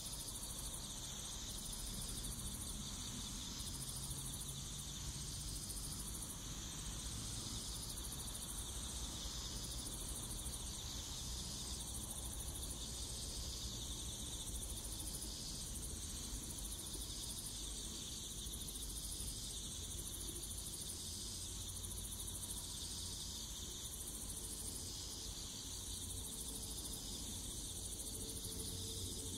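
A steady, high-pitched insect chorus chirring and pulsing about once a second, over a faint low rumble.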